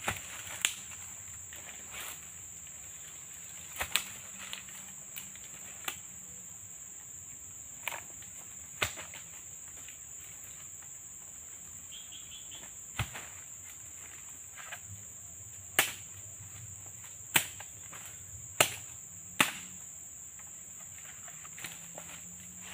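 Steady high-pitched insect drone with sharp knocks every one to three seconds from oil palm harvesting: fresh fruit bunches being handled and chopped, the loudest knocks a little over two-thirds of the way through.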